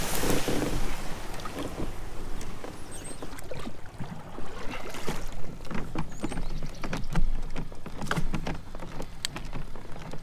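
Plastic sit-on-top kayak, a Hobie Outback, being launched and paddled: a rush of noise near the start as it goes off the bank, then paddle strokes and splashes with many small knocks and clicks of paddle and gear against the hull.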